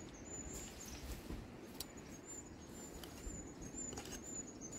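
A small screwdriver working at the clips on an electronic EGR valve's casing: faint scraping with a few light clicks, about one a second. A thin, high, steady tone sounds faintly in the background.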